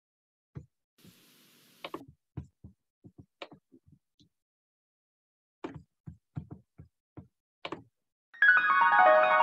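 Scattered clicks and soft taps of a computer mouse, about a dozen, with pauses between them. Keyboard-piano music starts suddenly near the end.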